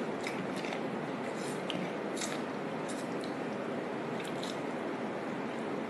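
A person chewing food, with scattered small clicks and smacks over a steady background hiss.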